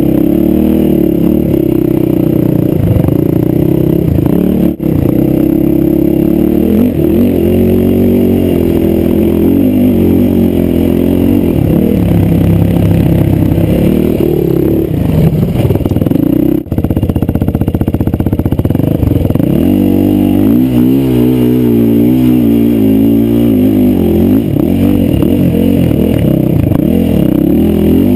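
Sport quad (ATV) engine running under way, revving up and down so its pitch keeps rising and falling. The sound breaks off for an instant twice.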